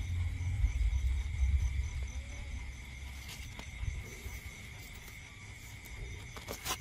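Night insects chirring steadily: one constant high note, with a faster pulsing trill above it. A low rumble sits underneath for the first few seconds, and there is a sharp click near the end.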